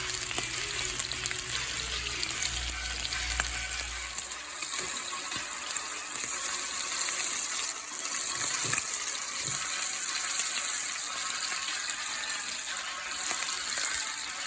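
Seasoned chicken frying in olive oil in a stovetop pan: a steady sizzle with scattered crackles and pops. A low hum underneath stops about four seconds in.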